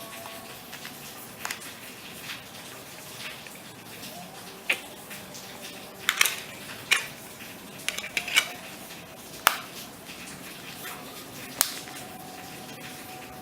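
Irregular sharp clicks and taps of small hard objects being handled, about a dozen, most bunched in the middle, over a steady background hiss.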